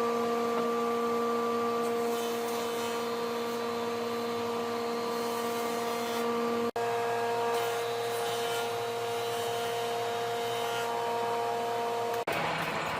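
An electric woodworking machine's motor running steadily with a whine. It drops out for an instant about seven seconds in, then turns to a rougher noise near the end.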